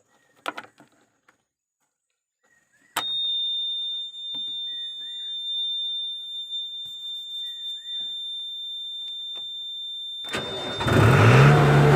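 JCB VMT 860 road roller being started: about three seconds in, the ignition is switched on and a steady high-pitched warning buzzer sounds. Near the end the starter cranks and the diesel engine catches and runs up.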